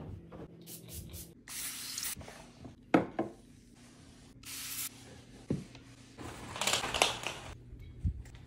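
Trigger spray bottle squirting cleaner in short hissing bursts, several close together near the end, with a cloth rubbing over surfaces in between. A sharp knock about three seconds in.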